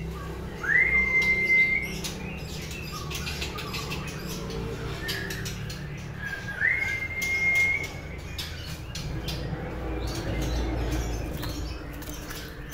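Caged white-rumped shama singing two long whistles a few seconds apart, each sliding up and then held level. Light clicks and wing flutters come from the bird hopping and flying about the cage.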